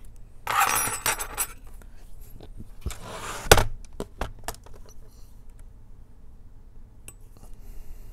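Handling noise from the laptop being worked on: rustling and scraping, then a few sharp clicks and taps of the metal pry tool and keys on the plastic case, the loudest click about three and a half seconds in.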